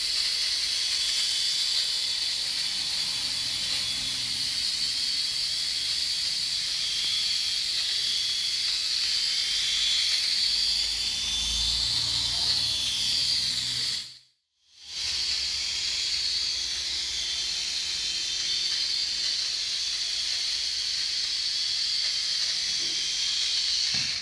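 Micro RC helicopter's small electric motors and rotor blades whining steadily at a high pitch as it flies and hovers. The sound drops out completely for about half a second partway through.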